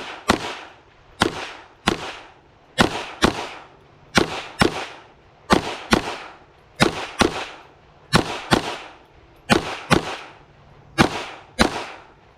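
Smith & Wesson M&P 2.0 22 Magnum semi-automatic pistol firing 40-grain .22 WMR rounds in rapid pairs, two shots about half a second apart, then a short pause before the next pair. Each shot is a sharp crack with a brief echo.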